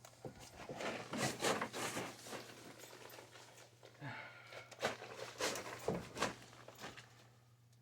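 Irregular scraping, rustling and clicking of hands working with tools and parts, over a steady low hum.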